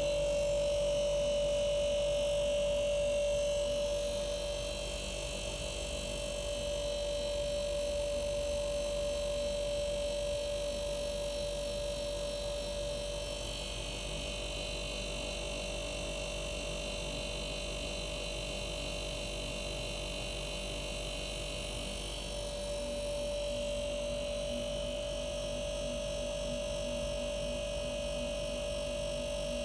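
Arçelik 5233 refrigerator's compressor running: a steady hum with a strong, even high tone over it, easing slightly about four seconds in and strengthening again later.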